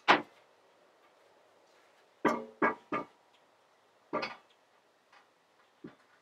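Clanks and knocks of a metal shovel head and tools being set down on a metal workshop shelf: a sharp knock at the start, a quick run of three a little over two seconds in with a brief metallic ring, another clank after four seconds and a lighter knock near the end.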